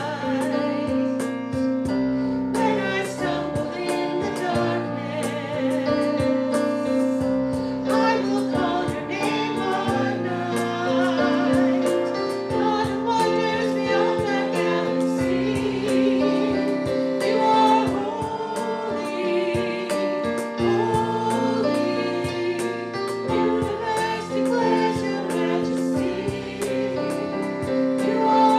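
A church congregation and worship leaders singing a worship song together, with keyboard accompaniment holding steady chords.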